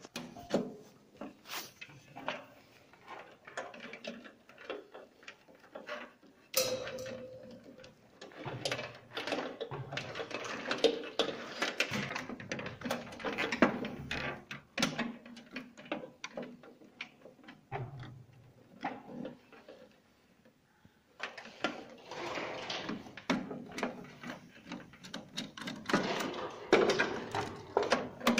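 Irregular clicks, taps and knocks of hands and tools working inside a metal electrical distribution panel, handling breakers and wires, with a brief pause about two-thirds of the way through.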